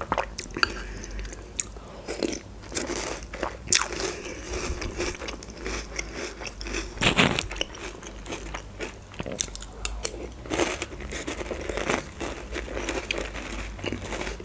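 Close-miked crunching and chewing of START! Milk Pillows, filled cereal pillows in milk, in a run of short crunches. The loudest crunch comes a little after seven seconds in.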